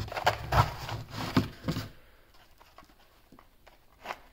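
Plastic mouse trap box being handled and pried open with gloved hands: a burst of knocks and rustles in the first two seconds, then a few faint clicks.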